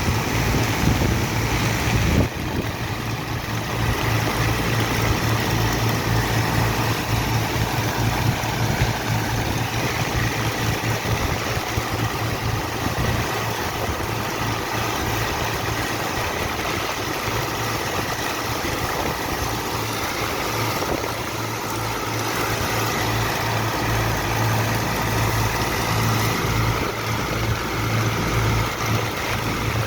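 Large engine of a sand dredging machine or pump running steadily under load, with a strong low hum and a heavy wash of mechanical and water noise. The sound shifts abruptly once, about two seconds in.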